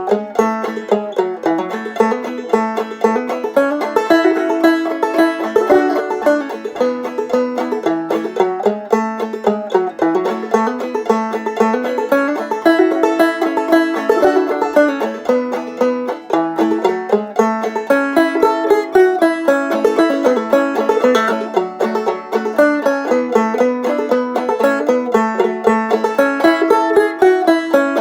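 Five-string banjo played clawhammer style: a quick, steady stream of plucked notes carrying a repeating old-time fiddle-tune melody, the drone string ringing between them.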